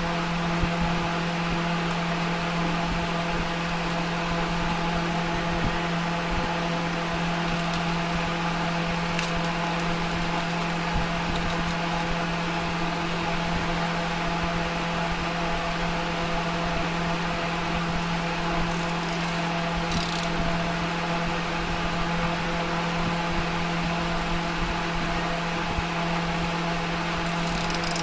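A steady low machine hum, unchanging throughout, with a few faint clicks.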